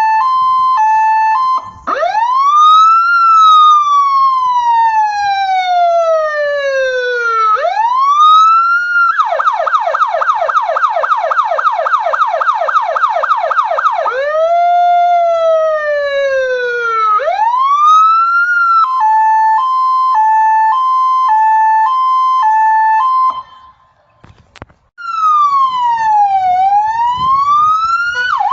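Fire engine's electronic siren cycling through its tones: a hi-lo two-tone, then a slow rising and falling wail, then a fast yelp, then the wail again. The two-tone returns after that. It cuts out for about a second and a half near the end, then comes back with one long falling-and-rising sweep.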